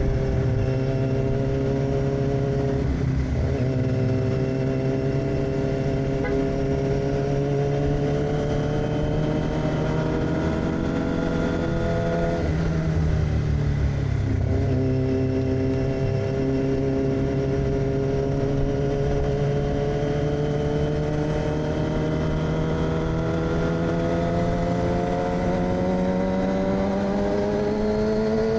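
2006 Yamaha R6's inline-four engine through an AR aftermarket exhaust, running under way with the note holding and slowly rising in pitch. It dips briefly about three seconds in and again twice between about twelve and fifteen seconds in, then climbs steadily to the end.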